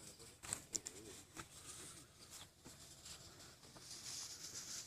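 Quiet outdoor background: faint distant voices, a few small clicks about half a second in, and a light steady hiss.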